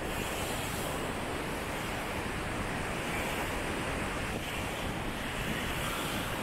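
Ocean surf breaking and washing ashore as a steady rushing noise, with wind buffeting the microphone.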